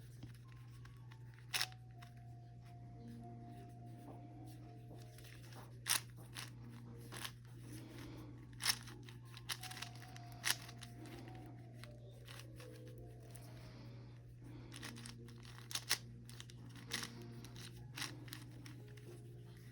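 Plastic 5x5 Rubik's cube being turned by hand: irregular clicks and clacks as its layers snap round, a few of them sharper and louder.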